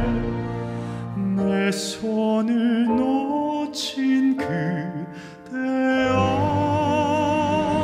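A male singer sings a slow ballad live in a classical-crossover style, with wide vibrato on held notes and audible breaths between phrases, over instrumental accompaniment. The low accompaniment thins out about a second and a half in and swells back near the end under a long held note.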